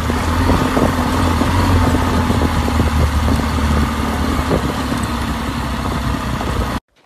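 Motorcycle engine running at a steady cruising speed on a gravel canyon track, mixed with heavy wind rush and the crunch of tyres on loose gravel. The sound cuts off suddenly near the end.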